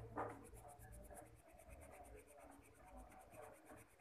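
Coloured pencil shading on paper: faint, quick back-and-forth scratching strokes, with one louder scrape just after the start.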